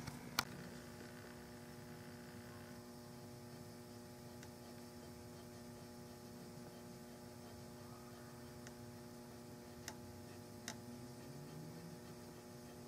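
Steady electrical hum with a few faint, sharp ticks scattered through it, from a hand checkering tool scraping border lines into the hard, finish-filled surface of a walnut rifle stock.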